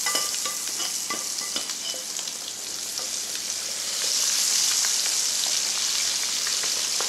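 Chickpeas deep-frying in very hot oil in a pan, stirred with a wire skimmer: a dense, steady sizzle with scattered sharp crackles, getting louder about four seconds in.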